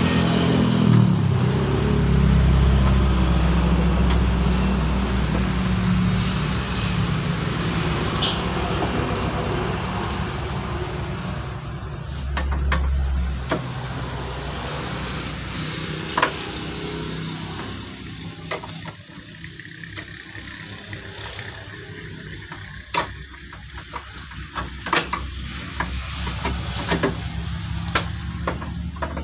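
A vehicle engine running with a steady low hum that fades over the first half. Scattered sharp metallic clicks and knocks follow from a socket wrench working the radiator's mounting bolts.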